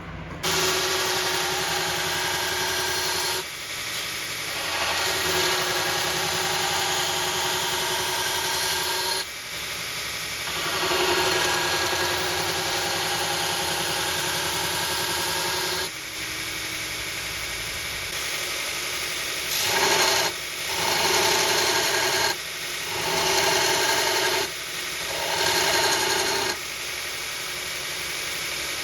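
Powered grinder grinding steel, pressed on in long passes of several seconds, then in shorter passes of about a second near the end.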